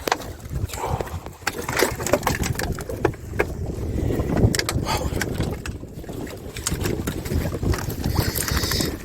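Small open fishing boat at sea: wind buffeting the microphone and water washing against the hull, with scattered knocks and clatter from work on board.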